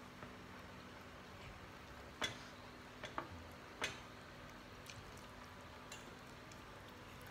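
A few short, sharp clinks of tableware at a meal: one about two seconds in, then three more over the following second and a half, with fainter ticks after.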